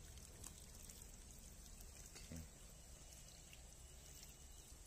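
Faint trickle of water running out of the end of a black plastic water pipe onto the ground, with one brief low sound a little over two seconds in.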